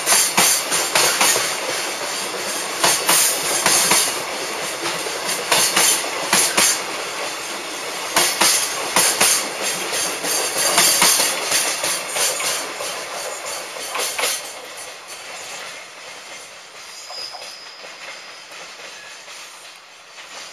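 Freight train's container flatcars rolling past, their wheels clattering over the rail joints. The clatter fades after the last wagon passes, about two-thirds of the way in, as the train draws away.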